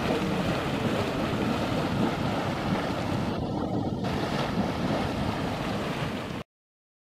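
Steady rushing, churning noise from the Mud Volcano's boiling, steaming mud pot, mixed with wind on the microphone. It cuts off suddenly near the end.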